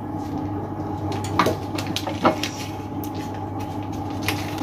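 A few light clicks and taps of a spice container and spoon being handled while masala powder is added to the pot, over a steady low hum.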